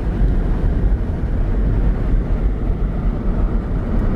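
Vehicle noise: a loud, steady low rumble with no clear engine note, which cuts off suddenly near the end.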